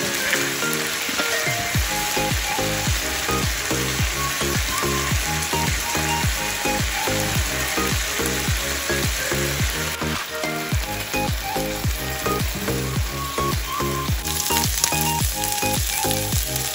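Chicken breast strips sizzling in hot oil in a nonstick frying pan as they are turned with a silicone spatula; the sizzle grows brighter near the end as salt is sprinkled over them. Background music with a steady beat plays under it.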